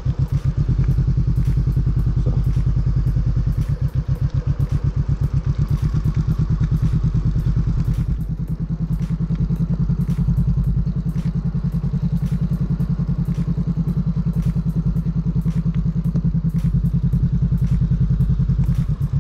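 Motorcycle engine running at low revs in a slow first-gear ride, a steady low pulsing rumble that eases briefly about eight seconds in.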